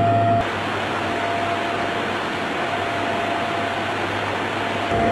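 Steady in-flight cabin noise of an aircraft: an even rushing of engines and airflow. About half a second in, a low hum and a steady whistling tone drop out at a cut, and they return just before the end.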